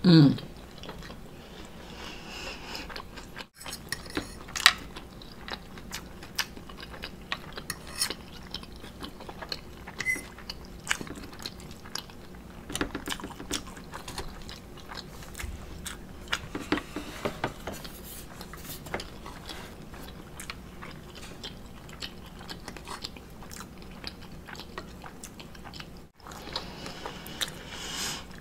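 Chewing and biting of an omelet and waffle, with scattered clicks and scrapes of a metal fork on a plate. A brief falling hum opens it.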